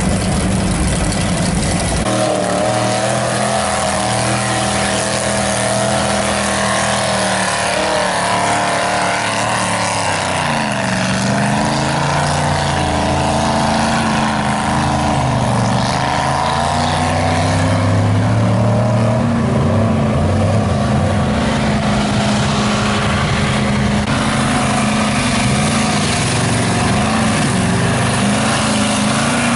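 Lifted mud trucks' engines revving hard as they drive through a mud pit, the pitch falling and climbing again with the throttle. The sound changes abruptly about two seconds in as one truck gives way to another.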